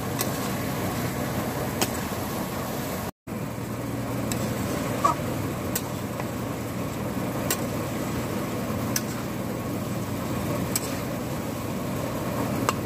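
Chicken curry cooking in a pan: a steady sizzling hiss over a low hum, with a few light clicks of a spoon against the pan. The sound cuts out for a moment about three seconds in.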